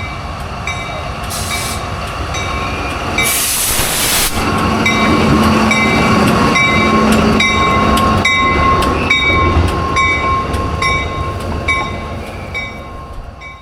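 Train at close range: the low rumble of the locomotive and cars, with a bell clanging about twice a second. A loud hiss comes about three seconds in, and a steady high whine joins soon after. The sound fades near the end.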